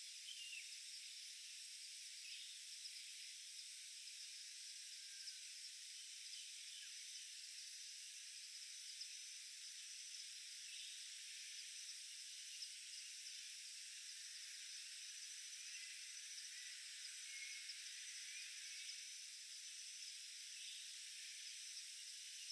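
Faint, steady forest insect chorus of thin high buzzing tones over a soft hiss, with a few faint short chirps scattered through.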